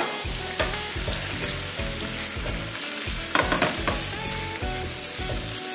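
Mussels, squid rings and shrimp sizzling in hot oil in a frying pan as they are tossed and stirred, a quick par-frying of the seafood. A few clattering knocks of the pan or utensil sound over the steady sizzle.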